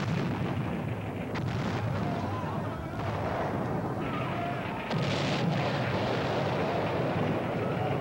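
A continuous din of explosions and gunfire, with a sharp crack about a second and a half in and a louder surge about five seconds in.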